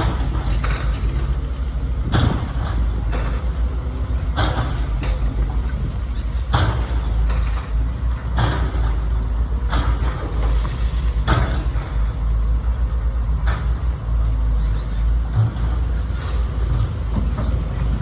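Radio-controlled model construction machinery running, its hydraulic pump giving a steady deep hum, with short sharp noises about every two seconds.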